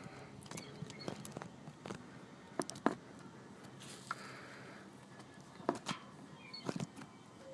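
Irregular light clicks and taps, about a dozen, with quiet handling noise between them: hands and parts being worked on metal underneath a pickup truck.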